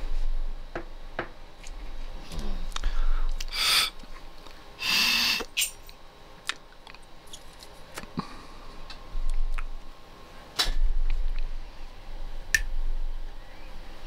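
Handling noise of a disassembled kitchen faucet: scattered clicks and taps of its hard plastic valve body and parts being turned over in the hands, with two short hisses about four and five seconds in.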